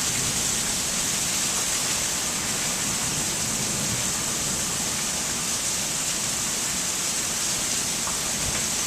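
Heavy monsoon rain pouring down in a steady, even downpour.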